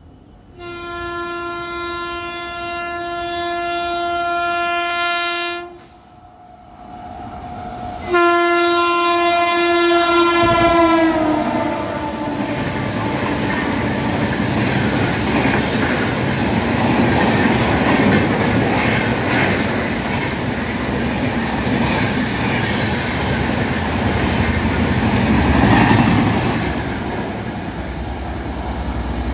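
A locomotive horn sounds one long steady blast of about five seconds, then a second, shorter blast whose pitch drops as the locomotive passes. A long rake of LHB passenger coaches then rushes through at about 110 km/h without stopping, its wheels clattering over the rail joints, and fades near the end.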